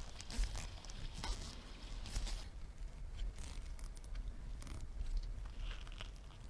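Faint scattered light clicks and ticks of small objects being handled, thickest in the first couple of seconds and sparser after.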